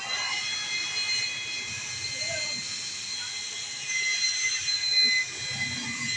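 Small DC electric fan running at full speed: a steady high-pitched whine of several tones over a rush of air.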